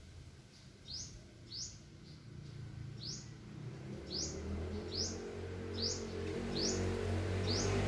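A bird calling a short, high, upward-sweeping chirp about seven times at irregular intervals. Underneath, a low hum builds up and grows louder through the second half.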